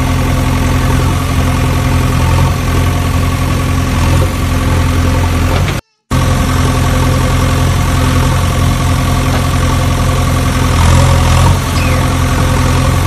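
Engine idling steadily, with one unchanging pitch. About six seconds in it cuts out completely for a moment, then resumes.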